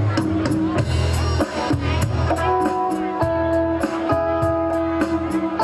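Band music without singing: guitar playing over bass and drums, with held notes and a steady beat.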